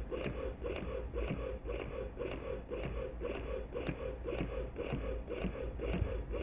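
Medela Pump In Style double electric breast pump running, its motor cycling the suction in a steady rhythm of about two strokes a second.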